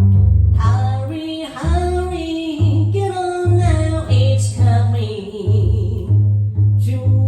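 A woman singing jazz over a walking upright double bass, the bass plucking a steady line of about two notes a second.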